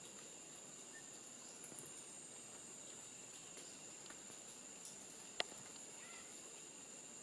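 Faint forest ambience dominated by a steady, high-pitched insect drone, with one sharp click about five seconds in.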